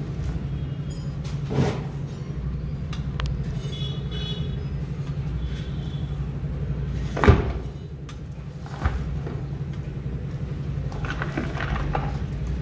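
A cardboard drill carton handled and set down on a glass tabletop, with scattered knocks, the sharpest about seven seconds in. A steady low hum runs underneath.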